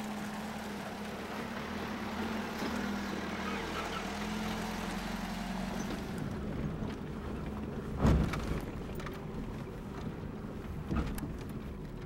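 Pickup truck engine running as the truck drives over a rocky dirt trail, with a loud knock about eight seconds in and a smaller one about three seconds later.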